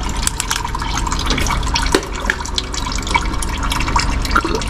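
Old, thick black engine oil draining in a thin stream from the sump into a drain pan, trickling and dripping. Over it, the clicking of a ratchet working an oil filter wrench to loosen the oil filter.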